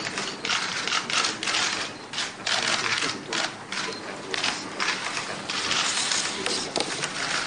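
A dense, irregular run of rapid clicks: many press cameras' shutters firing at once during a photo opportunity.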